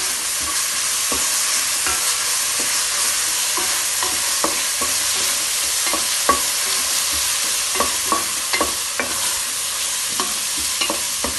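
Sliced onions with crushed green chilli, ginger and garlic sizzling in hot coconut oil, sautéing on their way to brown, with a spoon clicking and scraping against the pan as they are stirred.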